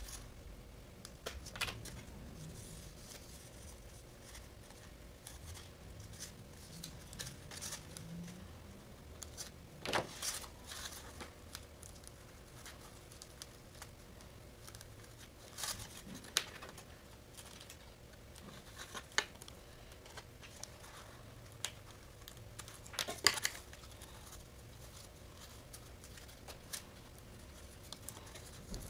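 Clear packing tape being handled, pressed onto a foam mold and slit with a hobby knife: soft crinkling and scattered short sharp clicks, the loudest a cluster about two-thirds of the way through.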